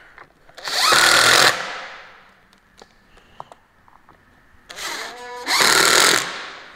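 Power drill driving screws through countersunk holes in a half-inch nylon plate into wood. It runs twice, about a second each time, a few seconds apart, with small clicks between the runs.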